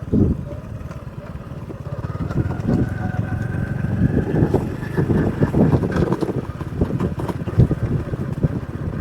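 Small motorbike running while being ridden, with an uneven low rumble; its engine note rises gradually from about two seconds in.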